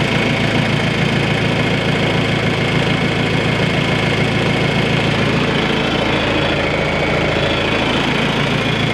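John Deere 310A backhoe's diesel engine idling steadily just after being started on fresh oil following an oil change.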